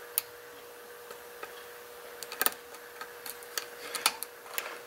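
Lock pick working inside a six-pin pin tumbler lock under tension: scattered small clicks and ticks as the pick lifts and probes the pins, sparse at first and more frequent in the second half.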